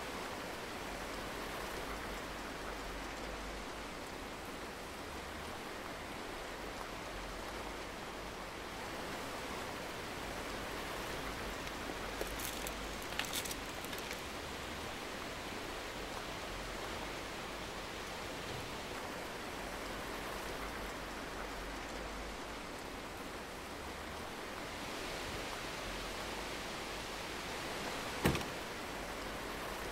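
Steady hiss of noise, even and unchanging, with a few faint clicks about twelve seconds in and one sharp knock near the end.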